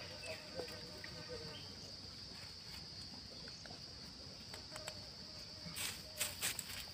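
Steady high-pitched drone of insects, with a few short rustles of dry leaves about six seconds in.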